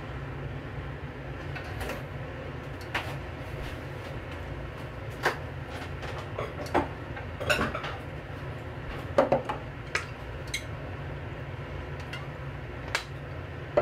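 Aluminium saucepan heating over a gas burner: irregular sharp ticks and small pops, about a dozen of them, over a steady low hum.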